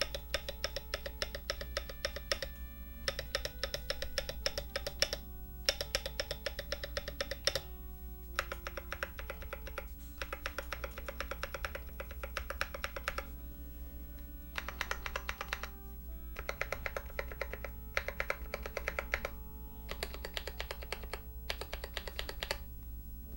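Fast typing on a KBDfans KBD67 Lite R2 mechanical keyboard (aluminum case, PC plate, stock Akko CS Lavender Purple tactile switches, PBT keycaps). It comes in about ten rapid runs of keystrokes, each a second or two long, with short pauses between them, over background music.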